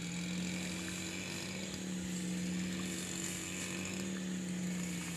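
A small motor running steadily with an even, low hum.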